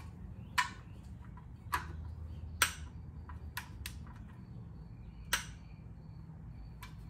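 About half a dozen sharp metallic clicks, one at a time with a second or so between, from a long wrench tightening the oil drain plug, over a low steady hum.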